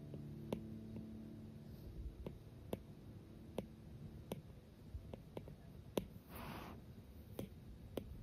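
Faint, irregular clicks of an Apple Pencil's hard plastic tip tapping on an iPad Pro's glass screen as paint strokes are laid down, roughly one a second. A short, soft rustle comes about six seconds in.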